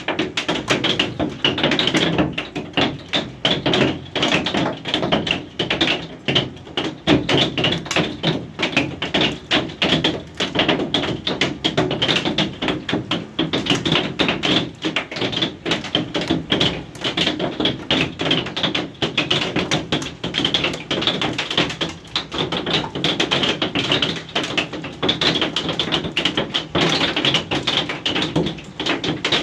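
Hail pelting down: a dense, unbroken clatter of hailstones striking hard surfaces, many impacts every second.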